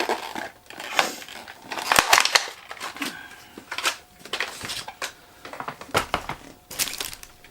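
Product packaging being handled and opened: irregular rustling and crinkling with a few sharp clicks and knocks.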